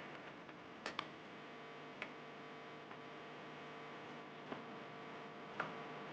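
A few sharp, scattered clicks over a faint steady electrical hum: small hard objects being handled on a workbench.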